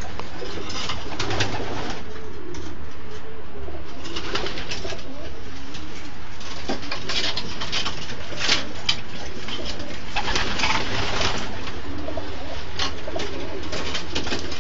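Racing pigeons cooing continuously, with several short bursts of rustling and wing flutters among them.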